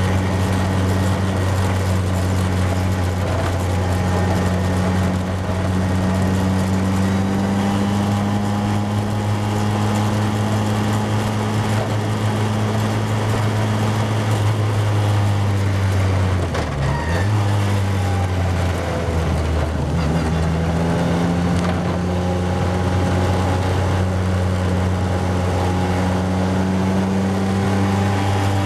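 Formula Ford single-seater's engine running hard, heard from onboard the car. Its pitch dips sharply about halfway through as the driver lifts and shifts down, slowing for a corner, and then it pulls steadily again.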